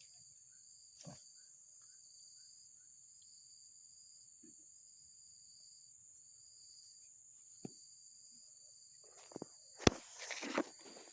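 Insects shrilling steadily in a high, continuous drone, with a second, pulsing chirp beneath it. A few isolated clicks come through, then a burst of knocks and rustling near the end, led by one sharp knock.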